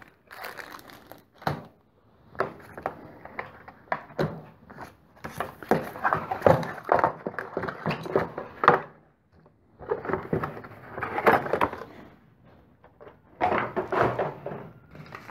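Cardboard box being handled and folded shut: irregular rustling and scraping of card, broken by several knocks as the box is closed and moved off the bench.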